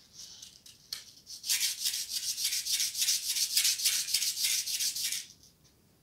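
A small burnt contact from a Milwaukee chop saw's trigger switch is scrubbed back and forth in folded sandpaper. It makes a quick rasping rub of about five or six strokes a second, faint at first, then loud from about a second and a half in until it stops shortly before the end. The contacts are being dressed because they are melted and pitted from overheating.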